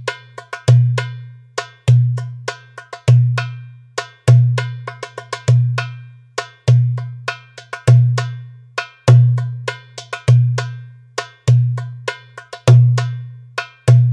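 Toumbeleki (Greek goblet drum) playing a steady tsifteteli rhythm at 100 bpm: a deep, booming doum stroke every 1.2 seconds, with quick sharp tek strokes on the rim between them, repeating evenly.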